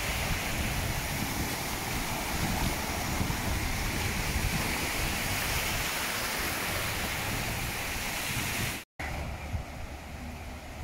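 Small surf washing up on a sandy beach, with wind on the microphone. Near the end the sound cuts out for a moment and comes back quieter.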